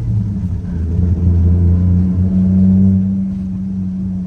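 Toyota Soarer's 1JZ inline-six engine running under throttle, building through the middle and then easing off, with no rev glide.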